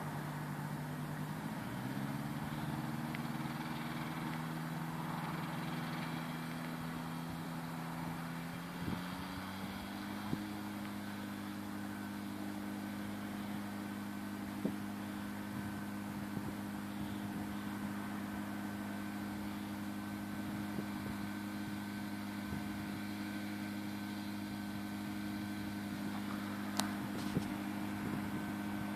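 The Rotax 582 two-stroke twin of a Fly Synthesis Storch ultralight running at low power as the aircraft taxis. Its pitch steps up about two seconds in and again about nine seconds in, then holds steady.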